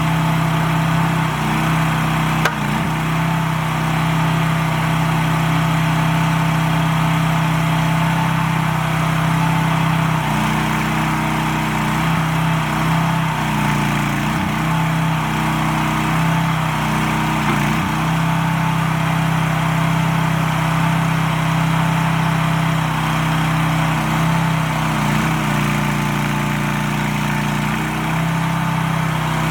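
Small engine of an AGT Industrial H15 mini excavator running steadily, its note shifting and dipping briefly several times.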